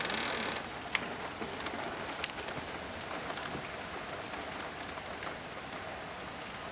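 Steady rain falling, with a brief louder rush at the start and a couple of sharp taps from drops close by, about one and two seconds in.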